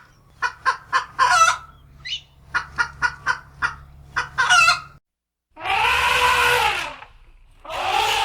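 Chicken clucking, a quick run of short clucks, followed after a brief cut by two longer drawn-out calls that rise and fall in pitch.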